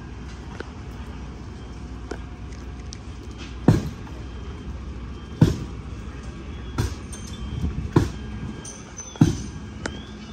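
Steady low rumble of fire apparatus engines running, broken by five sharp bangs about a second and a half apart, each dying away quickly.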